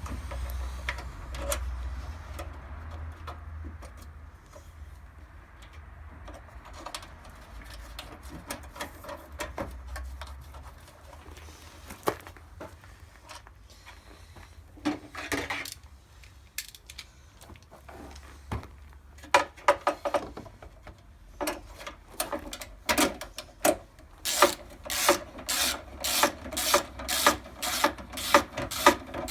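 Scattered clicks and knocks as a headlight assembly is fitted and its bolts started, then a ratchet spanner tightening the headlight mounting nuts onto their studs in a steady run of rasping strokes, about two a second, near the end.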